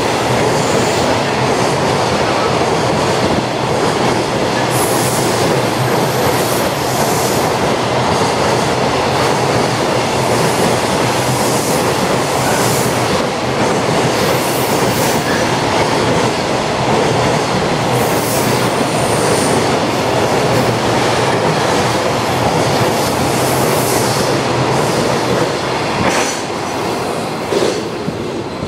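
Freight train of container wagons passing at speed along a station platform: a continuous loud roar and rattle of wheels on rail, with brief high-pitched wheel squeals several times. The noise eases near the end as the last wagon goes by.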